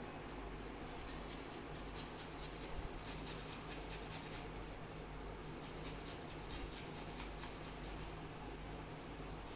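Fresh ginger root being peeled by hand: quick scratchy scraping strokes on the skin, coming in a run for a few seconds, easing off, then starting again near the end, over a steady low hum.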